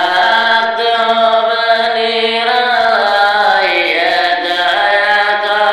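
A man singing a Bengali Islamic gojol solo, in long held notes that slide in pitch.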